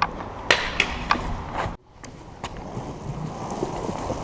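Stunt scooter on wet street: several sharp clacks of the scooter knocking on the ground in the first second and a half, then a sudden cut, one more clack, and a steady wet hiss of wheels rolling on soaked pavement.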